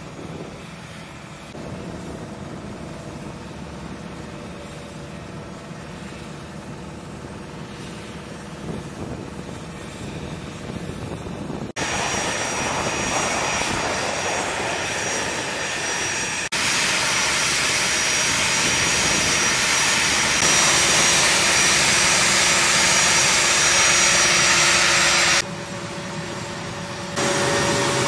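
The twin TF34 turbofans of an A-10C Thunderbolt II idling on the ramp during an integrated combat turn, rearmed with its engines running: a steady jet rush with a high whine. It is quieter for the first dozen seconds, then loud, with sudden jumps in level where the footage is cut.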